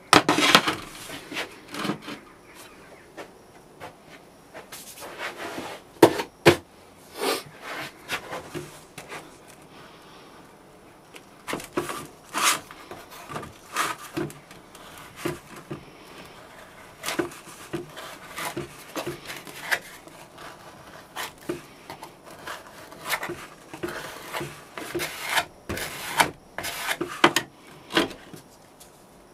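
A plastic scraper scraping excess casting sand off the top of a packed round flask, with sand crumbling onto a metal tray. Irregular scrapes and rubs come through, broken by short sharp knocks.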